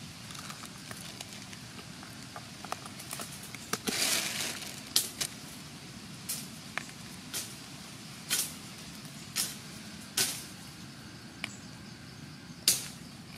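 Dry leaf litter rustling and crackling as a hand picks wild mushrooms from the forest floor: a string of short, crisp crackles with a longer rustle about four seconds in, over a steady faint hiss.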